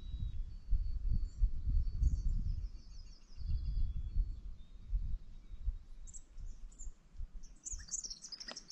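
Woodland songbirds singing: a thin high whistle, a fast falling trill, and short high chips near the end. Under them runs an uneven low rumble on the microphone.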